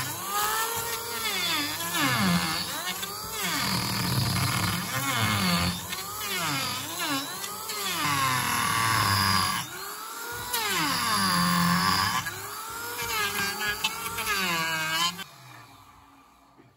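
Maktec electric hand planer cutting across the top of a block of wood and cured epoxy resin. Its motor whine sags and rises again over and over as the blades bite and pass, then stops suddenly near the end.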